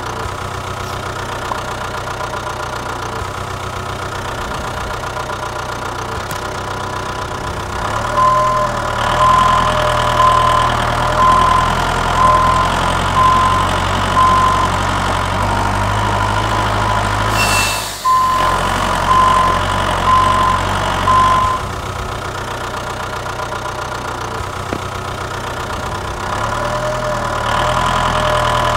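Tractor engine idling with a steady rumble. From about eight seconds in it gets louder and a regular high beep sounds roughly every 0.7 seconds until about twenty-one seconds, broken by a short click and a brief dropout midway; the louder engine comes back near the end.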